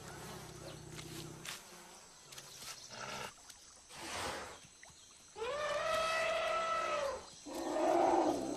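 Asian elephant trumpeting: one loud, pitched blast lasting nearly two seconds that swoops up at the start and drops at the end, followed near the end by a shorter, rougher call. The elephant is likely alarmed by wild dogs.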